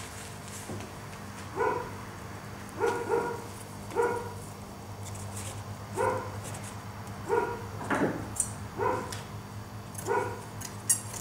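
A dog barking repeatedly, about nine barks spaced a second or so apart, some in quick pairs.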